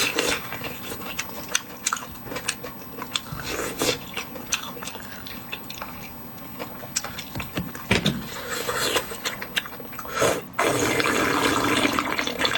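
Close-up wet mouth sounds of someone eating lamb shank bone marrow: slurping and sucking with many smacking clicks. A louder, steady sucking sound comes in about ten and a half seconds in.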